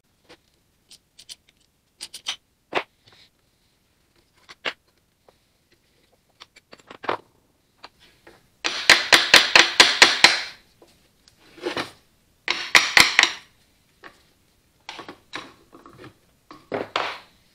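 A ball-peen hammer taps on the end of an Allis-Chalmers WD45 tractor starter motor to knock the end housing loose so the armature can be drawn out. There are three quick runs of sharp metallic strikes, the first and longest about two-thirds of the way in. Before them come scattered light clicks and knocks of parts being handled.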